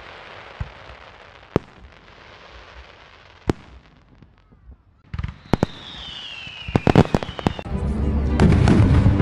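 Aerial fireworks: a hiss with a few scattered sharp bangs, then a falling whistle and a quick run of sharp cracks. Music comes in loudly near the end.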